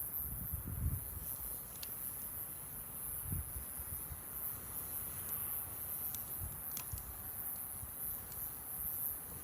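Wood campfire burning close up, with scattered sharp crackles and pops from the burning wood over a low rumble and a steady high hiss.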